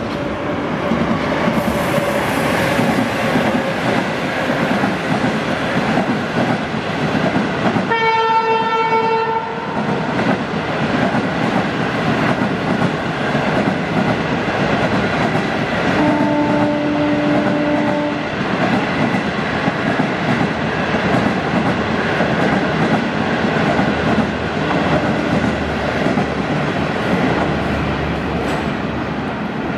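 HXD1D electric locomotive and its passenger coaches running past with a steady loud rail noise. A horn blast about eight seconds in lasts about a second and a half. A second, lower horn tone sounds for about two seconds around the sixteen-second mark.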